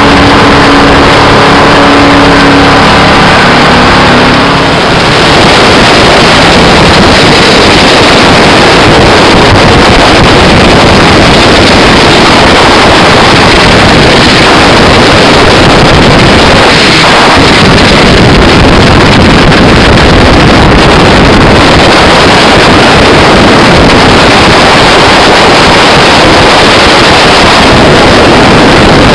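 Edge Marine Velocity LS 21-foot jet boat running at speed, loud and steady. Its engine's pitched hum stands out for the first five seconds or so, then is buried under rushing wind on the microphone and water spray.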